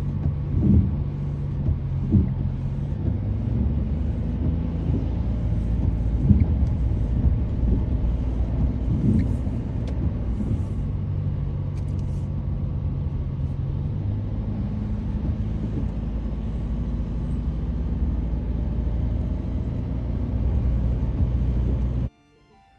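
Vehicle driving on a highway: steady road and engine rumble with a low hum and a few brief thumps, cutting off suddenly near the end.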